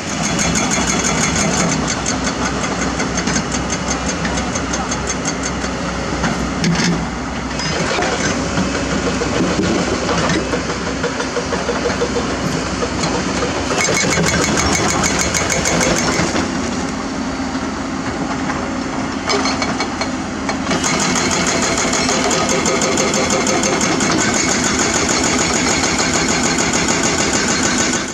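Hydraulic breaker on a Hyundai HX210S excavator hammering limestone: a rapid, steady pounding of strikes, with brief pauses, over the excavator's running diesel engine.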